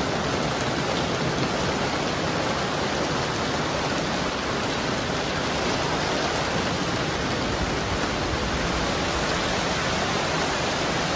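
Heavy rain falling steadily on wet pavement and parked cars, an unbroken even hiss.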